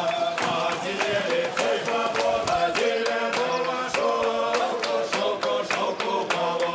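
Background music of several voices singing together in a chant-like style.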